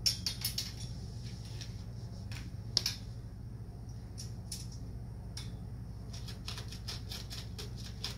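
Small metal hardware and tools being handled while parts are screwed together: irregular sharp clicks and clinks, with a quick run of clicks near the end.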